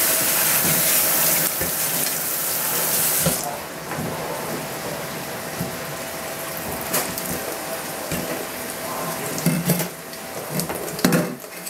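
Kitchen tap running into a sink as squash are rinsed, shut off about three seconds in. After that come quieter handling sounds and a few light knocks.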